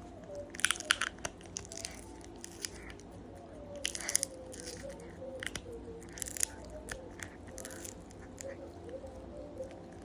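A pet crunching and chewing a hard snack, in clusters of crisp crunches about a second in, around four seconds and just past six seconds, with smaller chews between.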